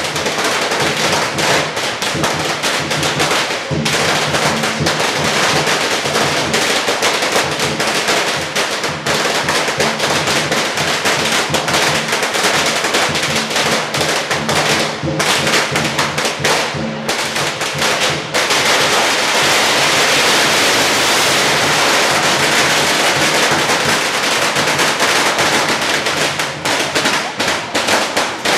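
Firecrackers going off in a rapid, continuous crackle of sharp pops. About two-thirds of the way through they merge into an unbroken rattle, then thin out into separate bangs near the end.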